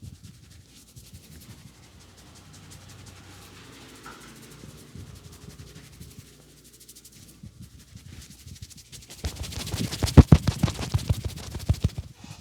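Hands rubbing and kneading a customer's head and neck during a barber's massage, then about nine seconds in a loud, rapid run of hand strikes, the slapping and chopping percussion of the massage.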